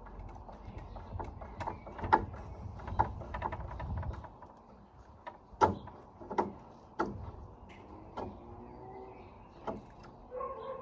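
Door closer being unscrewed from a gate: irregular clicks and sharp metal knocks from the screwdriver working the fixing screws, with a low rumble of handling through the first few seconds.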